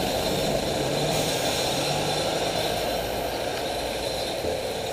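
A vehicle engine idling steadily, with no revving.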